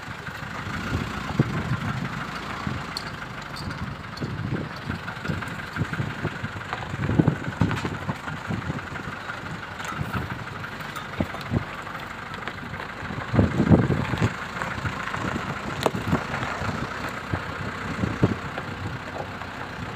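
A vehicle's engine running while it drives along, with irregular low rumbles and thumps, the strongest about a third of the way in and again past the middle.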